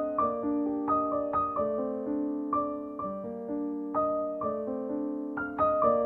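Background piano music: a slow, gentle melody of single notes that ring on and overlap as they fade.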